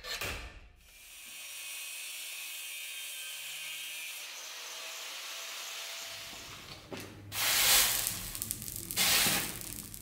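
A hacksaw rasps on a steel rod in a vise for a moment. Then an angle grinder runs with a steady hiss and cuts through the rod in two loud bursts near the end.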